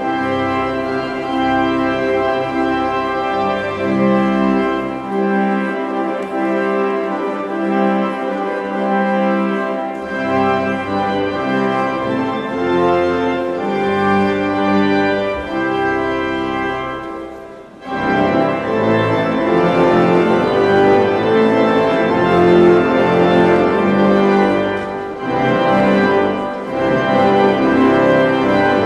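Church pipe organ playing slow, sustained chords. The deep pedal notes drop out for a few seconds early on. After a brief break about two-thirds of the way through, the playing comes back fuller and louder.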